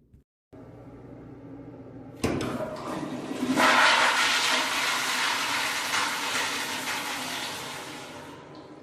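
A public toilet flushing, loud: a sudden rush of water starts about two seconds in, swells for a second or so, then slowly dies away, over faint steady background noise.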